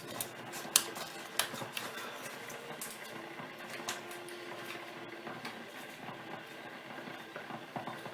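Scattered light clicks and knocks of a container being handled while its top is worked open, a top that is awkward to get off.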